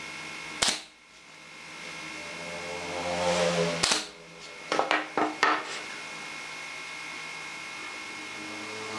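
Nail gun firing brads into a pine frame joint: one sharp shot just over half a second in, another just before four seconds, then a quick run of four shots around five seconds.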